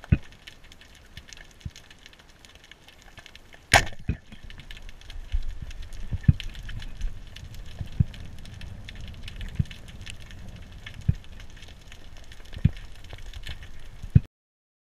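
Two-band 100 cm wooden speargun firing underwater: one sharp crack as the bands release and the shaft launches, about four seconds in. After it comes a low rumble with a series of dull knocks.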